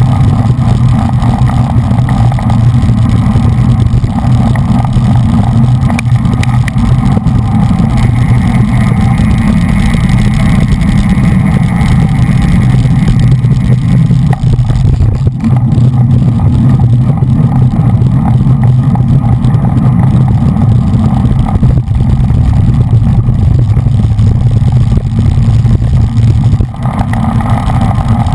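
Wind rushing over the microphone of a bicycle-mounted action camera riding in a racing bunch: a loud, steady low rumble, with road and tyre noise underneath. It dips briefly near the end.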